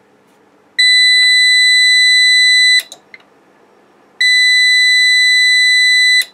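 UPS alarm buzzer giving two long steady beeps of about two seconds each, while the UPS runs from a 24 V bench supply in place of its batteries. The owner takes this as a sign the supply needs more capacitance. A faint steady hum runs underneath.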